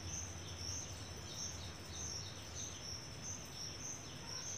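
Faint, high-pitched chirping repeating about twice a second in the background. Soft strokes of a marker writing on a whiteboard sit beneath it.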